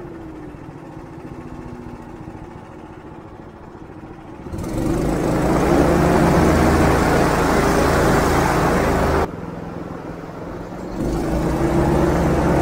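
Airboat engine and propeller running: low and slowing at first, then opened up loud about four and a half seconds in, dropping suddenly and throttling up again near the end.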